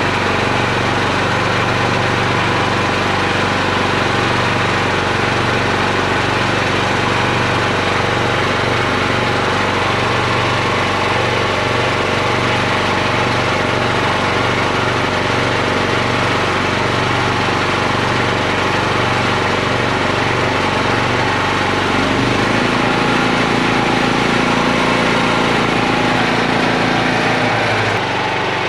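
Predator 8750 inverter generator engine running steadily, throttled down to low output by its electronic throttle. Its low hum changes in tone about 22 seconds in.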